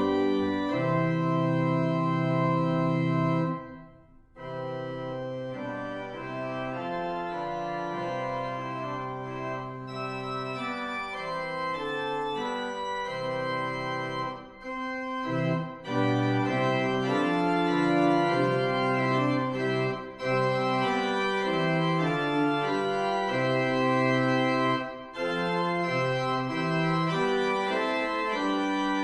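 Organ playing a hymn in sustained chords that change every second or so. The chords break off briefly about four seconds in, and there are shorter breaks between later phrases.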